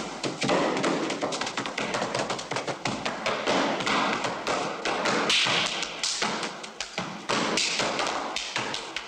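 Shoes tapping and stamping in a quick dance. Many sharp taps and thuds follow one another with a scuffing rustle between them.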